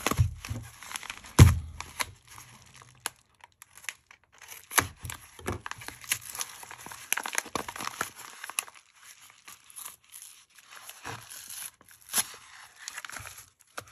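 Yellow padded mailer being handled and torn open: paper rustling, crinkling and tearing in irregular bursts, with one loud thump about a second and a half in.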